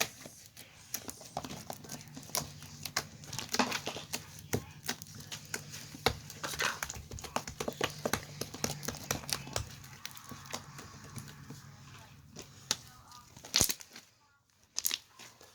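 Slime being squished and kneaded by hand, giving irregular sticky clicks and pops, with a few louder pops near the end.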